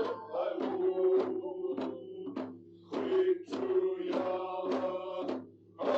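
Chant-like male singing over a steady drum beat of about two strokes a second, with two short breaks in the song.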